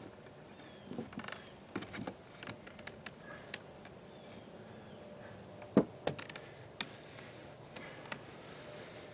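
Scattered light knocks and taps of a hammer and a rough-cut oak trim board being set against wooden siding, with one sharp hammer blow about six seconds in and a couple of lighter ones just after.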